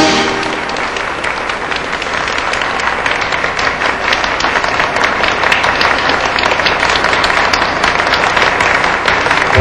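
Audience applauding: dense clapping that grows a little louder, as the orchestra's closing chord dies away at the start.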